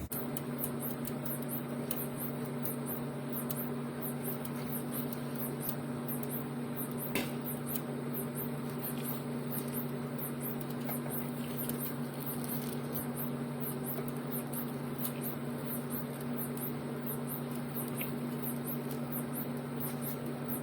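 Steady low hum with an even hiss, and a single light click about seven seconds in.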